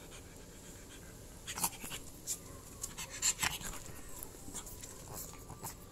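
Pug breathing and panting, with a few sharp clicks and scrapes starting about a second and a half in.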